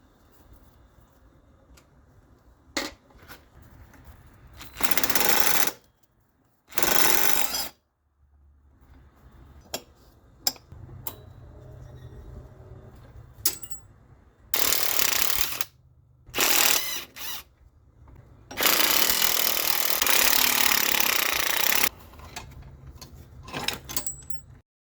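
Handheld power tool run in five short bursts, the last and longest lasting about three seconds near the end, with small clicks between them.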